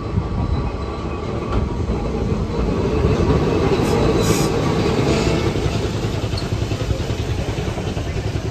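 Replica streetcar pulling into the stop: a low, steady rumble of the car on its rails that swells a few seconds in, with two short hisses about four seconds in.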